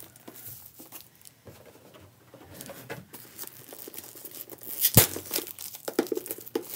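Plastic packaging crinkling and rustling as a crochet hook case is handled and unwrapped. The crinkling gets busier after a couple of seconds, with one sharp click about five seconds in.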